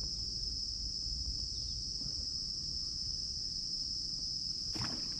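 Insects trilling in one steady, unbroken high-pitched drone over a low rumble, with a single short knock near the end.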